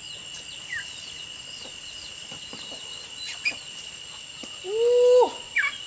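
Small birds chirping now and then, and about five seconds in a chicken gives one drawn-out call lasting under a second.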